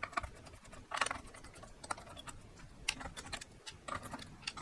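Irregular light clicks and taps of small metal and plastic parts being handled as a graphics card's heatsink is taken off, with a few louder knocks about a second in and near three seconds.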